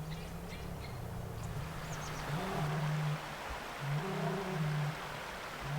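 A cow mooing: low, pitched calls that swell in at the start, two short moos in the second half. A few high bird chirps are heard in the first second or so.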